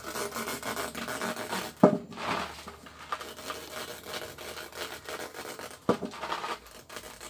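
Knife cutting through a rubber car tyre, a steady scraping and rubbing of the blade in the rubber, with two sharp knocks, one about two seconds in and one about six seconds in.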